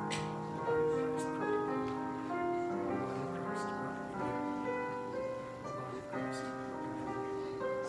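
Slow instrumental hymn music: sustained notes and chords moving from one to the next, with a few light clicks over it.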